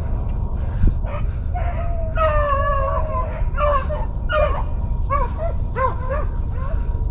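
Rabbit-hunting hounds baying on a rabbit's trail: long drawn-out bawls, then a run of short, quick yelps. A thump about a second in, over a steady low rumble.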